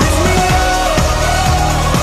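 Background pop music: a melodic instrumental line over bass and a steady beat, with no singing.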